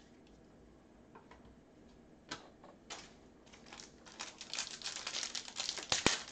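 Foil trading card pack being opened and handled: a couple of separate crackles, then a quickening run of rapid crinkling clicks from the wrapper and cards that grows louder over the last few seconds.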